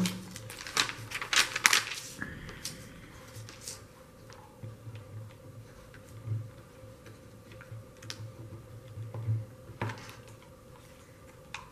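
Clicks and light taps from handling a hot glue gun and small plastic buttons on a wooden frame: a cluster of sharper clicks in the first two seconds, then scattered soft ticks.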